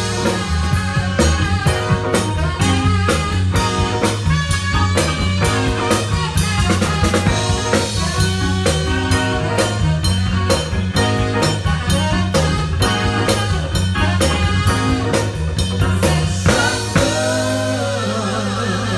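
Music with a steady drum-kit beat and bass; near the end the drums stop and sustained notes carry on.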